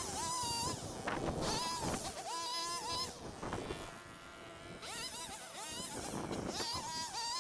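Small petrol engine of a handheld yard power tool revving up to a high buzzing whine and dropping back again and again, about once a second, with a quieter lull in the middle.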